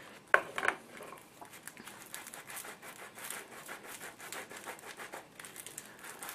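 Cut tomato half being rubbed over crusty toasted ciabatta: faint, rapid scratchy scraping strokes, with a brief louder sound about half a second in.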